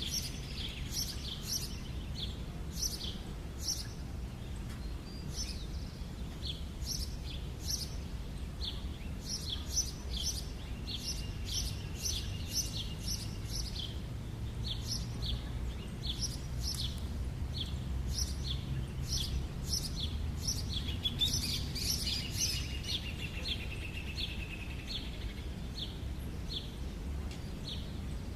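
A small bird chirping over and over in short high notes, about two a second, over a low background rumble.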